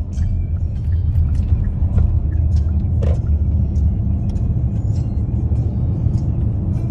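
Car cabin road and engine rumble while driving on the highway, with music playing over it.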